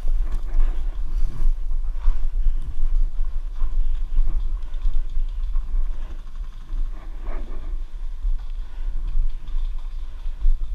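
Steady low rumble with irregular scuffs and rustles: handling and wind noise on a camera mounted on a paintball marker, with no shots fired.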